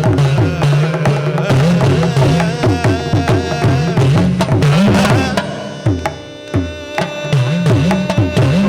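Live Indian classical percussion: a hand drum played in quick strokes, its bass strokes bending in pitch, with a melodic line above it.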